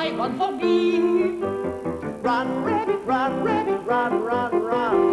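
A woman's soprano voice sings a popular song with a wide vibrato to grand piano accompaniment.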